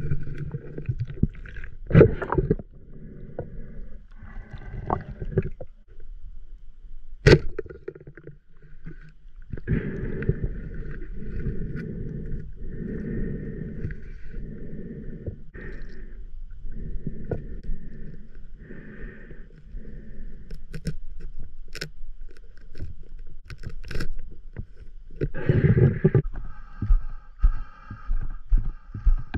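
Muffled underwater sloshing and rushing of water around the diver's camera, coming and going in stretches, with a few sharp knocks and clicks.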